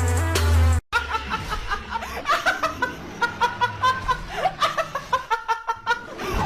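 Music cuts off suddenly about a second in, followed by a run of short, high-pitched laughs, several a second, as in a cartoonish laughing sound clip.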